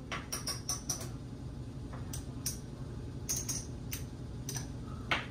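Casino chips clicking and clacking against each other as they are handled, a dozen or so sharp, irregular clicks that come thickest in the first second, over a low steady room hum.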